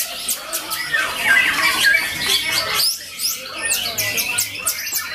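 White-rumped shama (murai batu) singing a varied song of whistles and rapid, high falling chirps.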